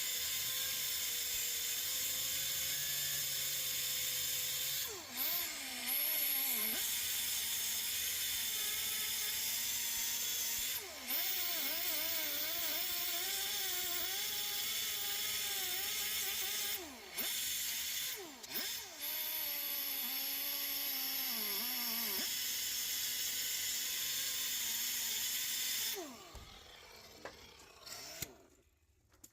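Handheld power tool running in long runs with a few short pauses, its pitch wavering as if under changing load, stopping near the end, followed by a few light clicks.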